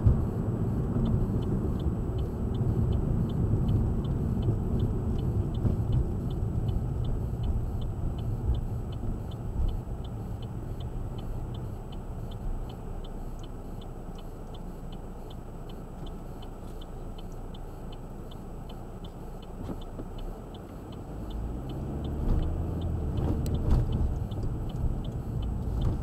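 Car interior noise while driving: steady low road and engine rumble that eases for several seconds in the middle, then swells again about two-thirds of the way in as the car picks up speed. A faint, regular ticking sounds about twice a second throughout.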